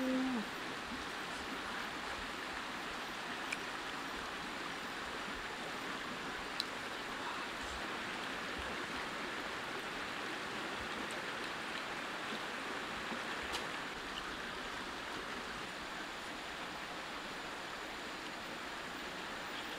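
Steady rushing of a rocky stream's flowing water. A short hummed "mm" comes from a person right at the start, with a few faint ticks later on.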